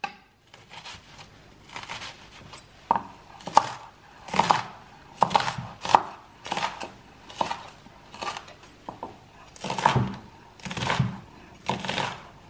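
Chef's knife chopping an onion on a wooden cutting board: an uneven run of strokes, about one to two a second, some with a short slicing scrape.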